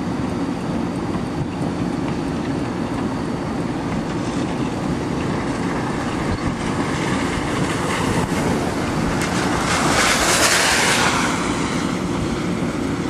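Steady rumble and road noise of a vehicle rolling along, with wind noise. A louder rushing swell builds about ten seconds in and fades again.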